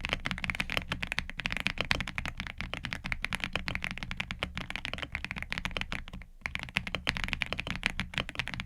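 Fast, continuous typing on an Aula F99 mechanical keyboard, a dense run of key clicks with a deeper thud under them, breaking off briefly about six seconds in before resuming.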